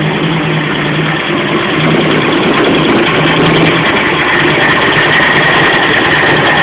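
Modified Ford 302 small-block V8 in a Ford Maverick idling with an uneven, pulsing rumble that grows a little louder about two seconds in.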